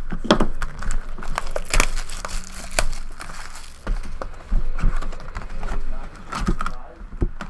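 Wrappers of a 2012 Topps Chrome Football trading-card box and its packs crinkling and tearing as they are opened, with irregular sharp crackles and clicks.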